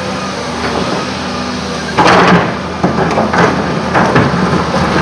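Volvo EC210 excavator's diesel engine running steadily, with the steel bucket scraping and clattering against rocky soil from about two seconds in: one loud crash, then several shorter scrapes and knocks.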